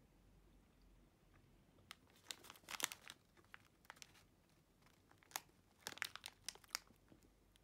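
Faint crinkling and crackling, like packaging being handled, in two short clusters: about three seconds in, and again about six seconds in.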